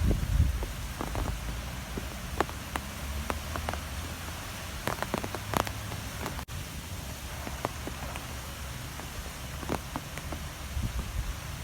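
Strong wind with rain: a low, gusting wind rumble under an even hiss, with scattered sharp taps of raindrops hitting a surface. The sound cuts out for an instant about six and a half seconds in.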